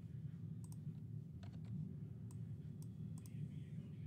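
Scattered sharp clicks of a computer mouse and keyboard, about eight in all, some in quick pairs, over a steady low background hum.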